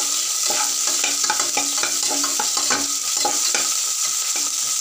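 Chopped onions sizzling in hot oil in an aluminium pressure cooker, stirred with a metal spatula that scrapes and knocks against the pot several times a second over a steady frying hiss.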